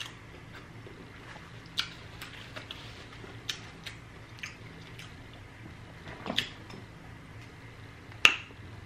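A few scattered small clicks and cracks as a king crab leg is handled and dipped, then near the end one loud sharp snip of kitchen scissors cutting through the crab leg's shell.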